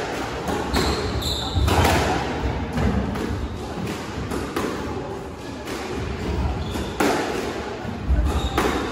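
Squash rally: the rubber ball cracking off racquet strings and smacking the court walls in an irregular run of sharp hits, roughly one every second, echoing in the hall.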